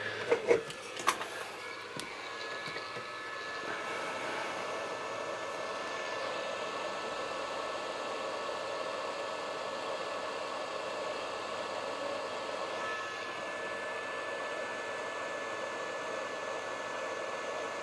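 Hot air rework station blowing on a circuit board, heating solder paste to reflow it onto a small module's pins. A few light knocks come first, then a steady rush of air with a faint high whine starts about two seconds in.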